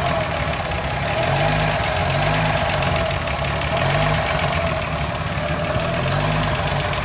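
Toyota Land Cruiser FJ60's 2F inline-six petrol engine idling roughly, its note swelling and dipping unevenly.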